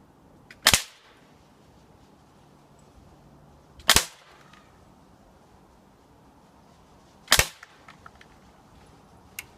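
Umarex XCP .177 CO2 BB pistol fired three times, a few seconds apart, each shot a sharp crack with a short ring. A few faint ticks follow near the end.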